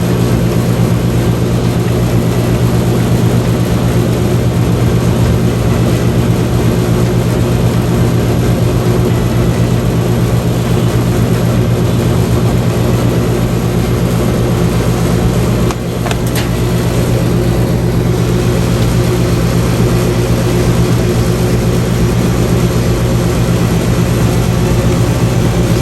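Electrolux clothes dryer running: a steady motor and drum hum that starts suddenly just after a short beep, with a brief dip and a click about 16 seconds in.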